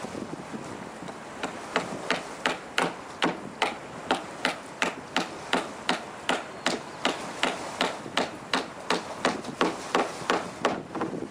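A hammer striking the wooden wing of a biplane sculpture in a steady, even run of about three blows a second. The blows are faint at first and grow louder about a second and a half in.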